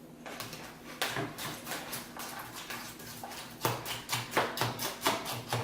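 Close crunching of hard, chunky breakfast cereal being chewed, short irregular crackles several times a second, louder and denser in the second half.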